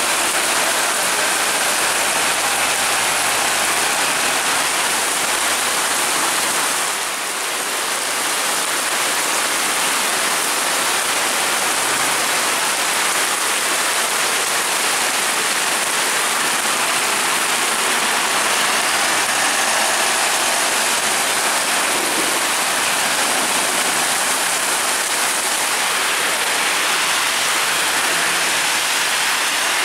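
Heavy downpour: a steady, dense rush of rain on the road and surroundings. Buses running and passing are faint beneath it.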